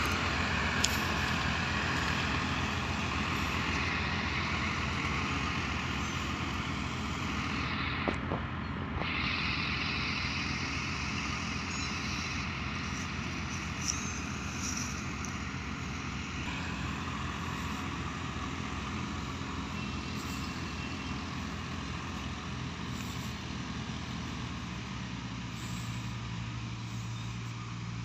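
Tractor engine running steadily as it hauls a loaded sugarcane trolley away, the regular engine pulse slowly fading as it pulls off.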